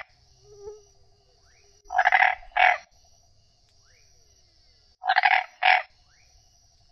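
Frog croaking: a pair of short croaks about two seconds in, and another pair about five seconds in.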